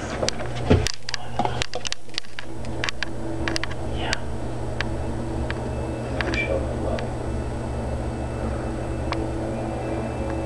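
A steady low hum with scattered clicks and knocks, most of them in the first few seconds.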